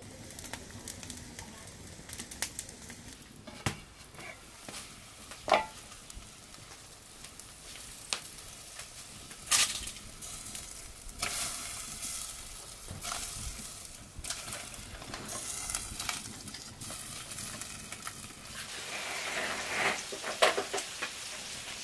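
Food sizzling and crackling in a hot pan while being stirred, with a few sharp knocks of the utensil against the pan.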